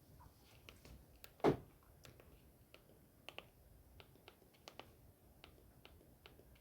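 Faint scattered clicks, with one louder thump about a second and a half in.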